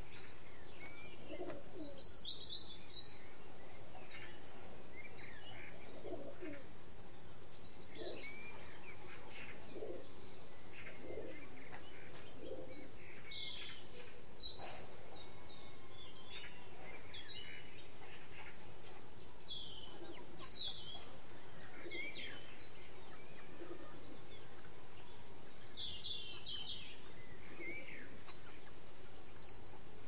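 Many birds calling: high chirps and short phrases from small birds, with lower short calls every second or two, over a steady background hiss.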